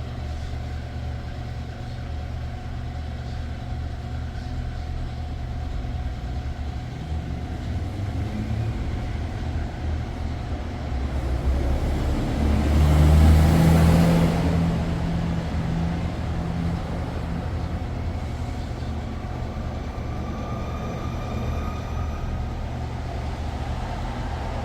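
Steady low mechanical running hum while compressor oil is being injected into a car's air-conditioning system. It swells louder for a couple of seconds about halfway through, with a held low tone.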